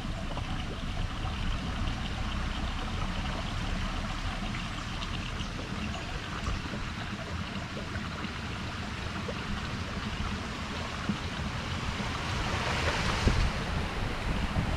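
Steady rush of water with wind rumbling on the microphone, and a short louder splash-like rush near the end.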